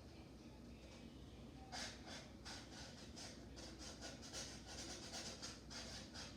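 A felt-tip marker drawing on a cup: a faint run of short scratchy strokes, several a second, starting about two seconds in.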